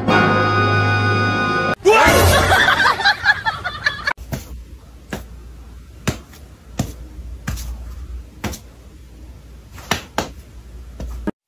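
Background music for the first couple of seconds, then a series of short, sharp slaps about once a second: a cat's front paws batting against a person's hand.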